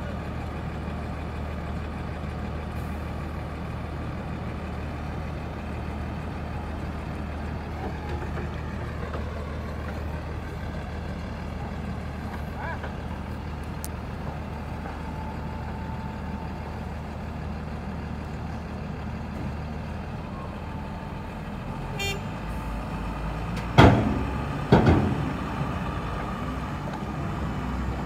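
Diesel engine of a JCB backhoe loader running steadily under work. Near the end come two loud knocks about a second apart.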